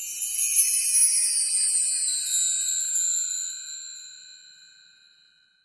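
High-pitched shimmering chime sound effect for a logo reveal: several bright bell-like tones ringing together and fading away over about five seconds.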